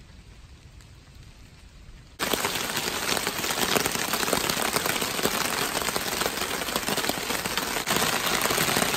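Quiet for the first two seconds, then heavy thunderstorm rain cuts in suddenly and keeps falling hard and steadily.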